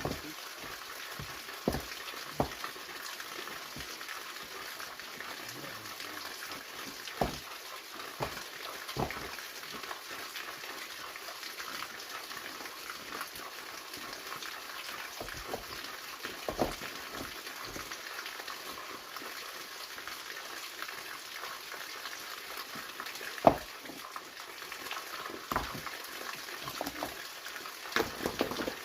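Steady rushing of a waterfall, with scattered sharp knocks and clicks through it, the loudest about two thirds of the way in.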